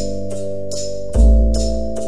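Background music: sustained keyboard chords over a steady ticking beat, with a deep bass note coming in about a second in.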